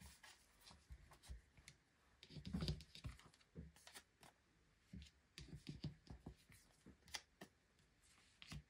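Faint rustling, clicks and light taps of a tarot deck being shuffled by hand and cards laid onto a cloth-covered table, with a slightly louder stretch of rustling a little before the middle.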